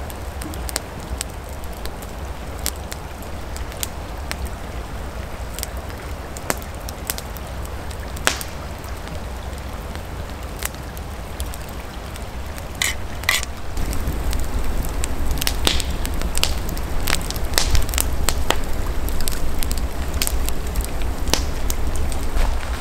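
Wood campfire crackling, with irregular sharp pops and snaps; the crackling grows louder and busier about two-thirds of the way through.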